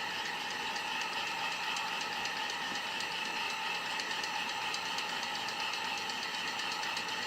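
Heat gun running steadily, a fan whine over a hiss of blowing air, used to soften the phone's adhesive so it can be pried open.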